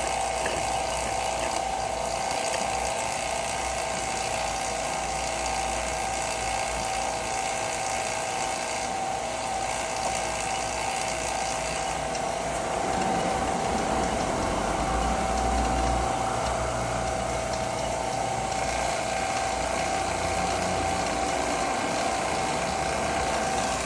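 1/3 hp electric vacuum pump running steadily with a constant hum. A deeper low rumble joins about halfway through.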